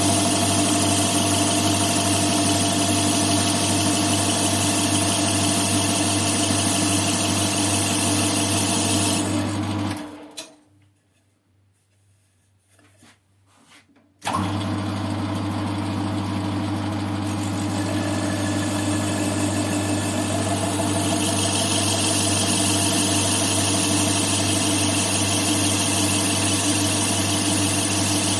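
CJM280 benchtop metal lathe running with a steady motor hum and cutting hiss. About nine seconds in the hiss stops and the hum winds down to near silence for about four seconds, then the lathe's hum comes back suddenly and runs on steadily.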